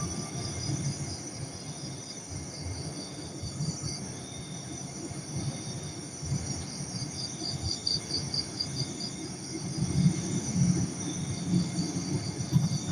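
Night insects trilling in repeated high, pulsed bursts about a second long, over a faint low rumble.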